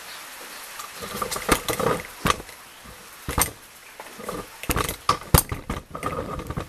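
Irregular clicks, knocks and rattles from a fishing rod and spinning reel being handled close to the microphone, starting about a second in. A steady hiss of rain runs underneath.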